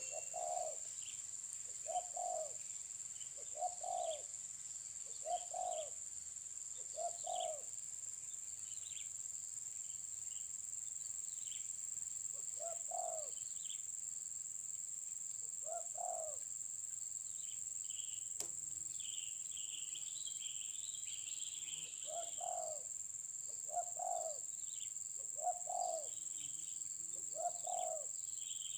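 Spotted doves cooing, single low coo notes about every second and a half in runs, with a lull in the middle. Under them runs a steady high-pitched insect drone, and small birds chirp, busiest around the middle.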